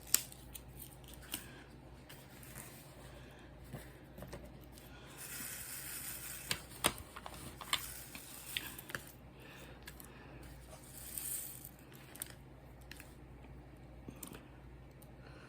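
Handling sounds at a craft canvas: soft rustling of a paper or plastic sheet in a few stretches, with scattered light clicks and taps, the sharpest just after the start and about seven seconds in.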